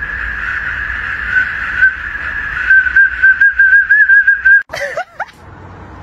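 A metal whistle held in a German Shepherd's mouth, blown with a loud, shrill, steady tone that starts to warble rapidly partway through. It cuts off sharply after about four and a half seconds, followed by a couple of short yelps.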